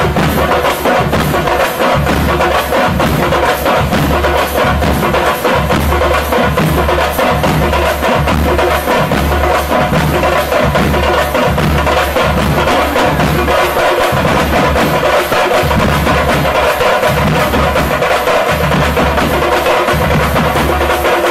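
Drum-led percussion music with a fast, steady beat.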